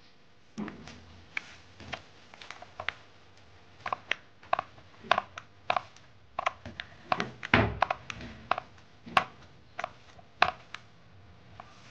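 Paint roller being worked back and forth in a plastic paint tray: a run of irregular sharp clicks and taps, with one heavier thump a little past the middle.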